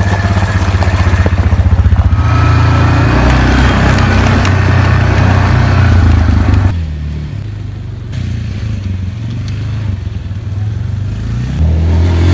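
Small quad ATV engine running close by, its pitch stepping up about two seconds in as it is throttled. The engine drops to a quieter run a bit past halfway and comes back loud near the end.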